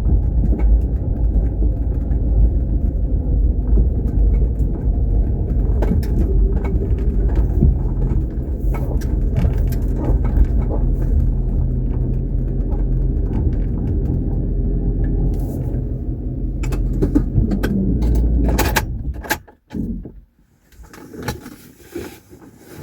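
Motor vehicle driving, a steady low engine and road rumble as heard from inside, with scattered clicks. Near the end the rumble cuts off suddenly, and a few knocks follow.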